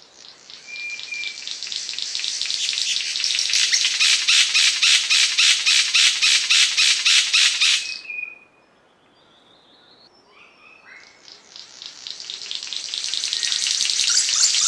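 Asian paradise flycatcher (cendrawasih panji) giving a long, harsh rattling trill of about five notes a second. The trill swells in loudness and stops abruptly about eight seconds in. After a short pause a second trill builds up from about eleven seconds.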